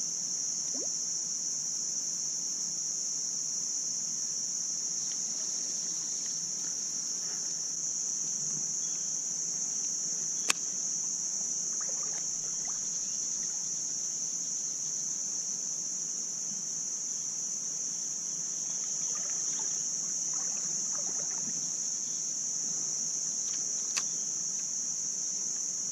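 A steady, high-pitched drone of insects, with a sharp click about ten seconds in and another near the end.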